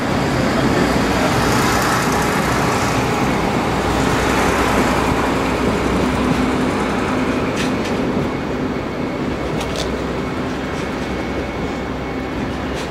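Steady hum and rush of a regional passenger train standing at a station platform, easing off a little in the second half, with a few short sharp clicks about eight and ten seconds in.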